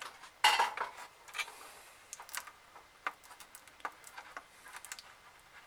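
Laptop parts being handled during a repair: a brief louder scrape about half a second in, then scattered small clicks and taps of plastic and metal.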